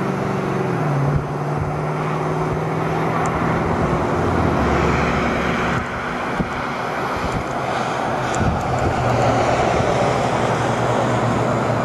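An engine running steadily, its low pitch shifting slightly a couple of times, with a few brief knocks.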